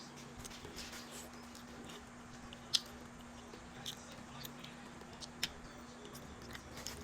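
Quiet eating sounds: a person chewing, with scattered sharp mouth clicks and smacks, over a faint steady hum.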